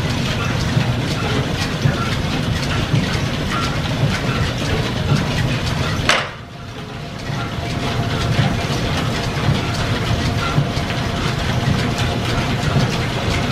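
Belt-driven horizontal milling machine and the shop's overhead line shaft and flat belts running, a steady mechanical clatter with a regular clicking rhythm; the milling machine is driven backwards through a crossed belt. About six seconds in the sound drops away briefly and then comes back.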